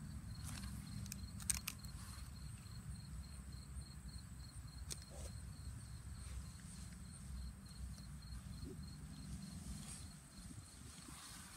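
Faint outdoor ambience: a high, thin insect chirp pulsing steadily over a low rumble, with a few light clicks and rustles.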